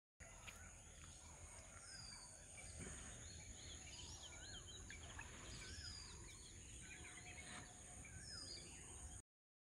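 Faint outdoor ambience: several birds calling with short chirps, and one short falling whistle repeated every couple of seconds, over a steady high-pitched whine and a low rumble.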